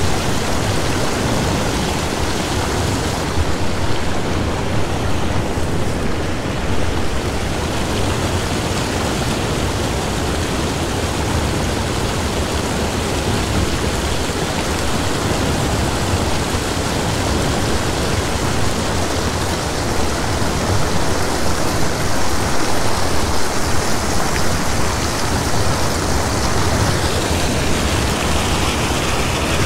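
Steady rush of warm outflow water pouring over a concrete edge and foaming as it spills into the river.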